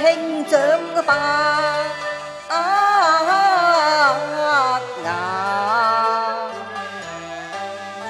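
A woman sings a Cantonese opera song in long drawn-out phrases with vibrato, over instrumental accompaniment from a Chinese opera ensemble.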